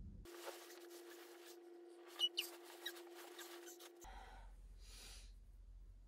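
Faint scratchy rubbing and handling noise over a steady low hum, with a few sharp clicks a little over two seconds in. About four seconds in the sound cuts to a low hum with a soft puff of breath.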